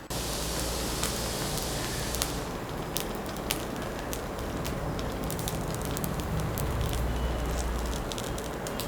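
Oothappam batter sizzling and crackling in oil on a hot tawa, a steady sizzle with many small pops throughout.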